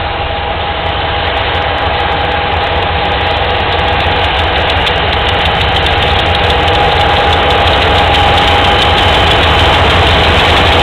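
Several diesel-electric freight locomotives approach and pass close by, their engines running and growing steadily louder, with a steady high note over the engine noise.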